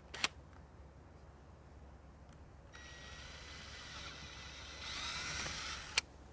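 A small electric power tool runs for about three seconds with a steady high whine that rises near the end, then a sharp click as it stops. A single click comes right at the start.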